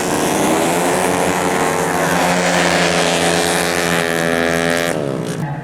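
Tuned 130 cc automatic scooter engine running at high revs in a road race, its pitch steady, then dropping and fading away about five seconds in.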